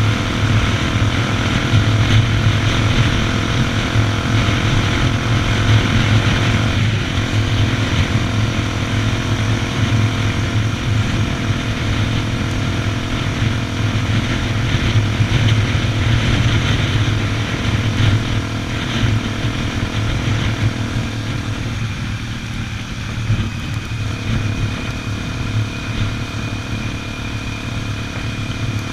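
Honda XR 250 Tornado's single-cylinder four-stroke engine running at a steady, even speed while riding, with road and wind noise over it.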